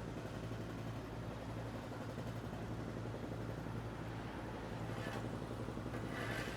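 Steady low engine hum of construction machinery running, with two short hissing noises about five and six seconds in.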